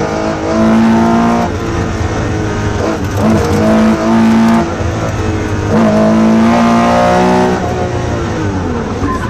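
Porsche 911 RSR's flat-six engine heard from inside the cockpit, pulled hard at high revs in three full-throttle bursts. Each time the engine note drops back in between, and the revs fall away near the end.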